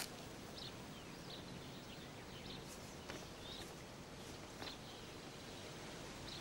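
Faint outdoor ambience: a steady low hiss with small birds chirping briefly here and there, about ten short chirps, and a few faint clicks.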